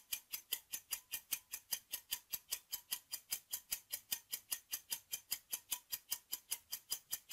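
Countdown timer sound effect of a quiz: a steady clock-like ticking at about five crisp ticks a second.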